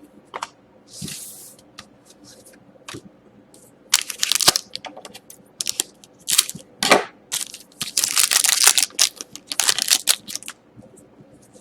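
Crinkling and tearing of a hockey card pack's wrapper, in several separate bursts of crackle.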